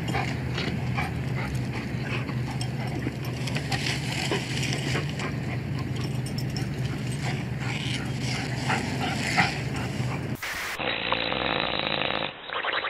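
A Labrador dragging a Christmas tree along asphalt: the branches rustle and scrape with many small crackles over a steady low hum. About ten seconds in this cuts off and gives way to a muffled hiss.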